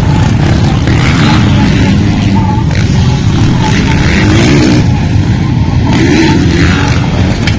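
Dirt bike engines revving as motocross bikes ride the track, the pitch rising and falling as riders work the throttle, with one bike passing close by.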